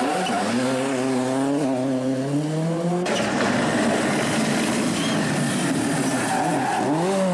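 Toyota Corolla WRC rally car's turbocharged four-cylinder engine accelerating hard, its note climbing steadily for the first few seconds. Near the end the revs rise and drop quickly several times as the car is worked through a corner.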